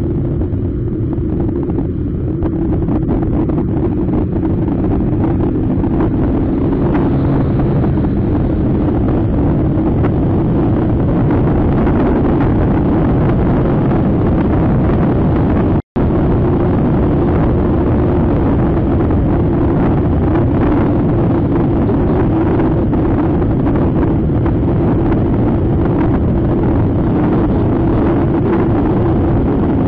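Motor scooter riding at road speed: steady wind rush on the microphone over the running engine and tyre noise. The sound cuts out for an instant about halfway through.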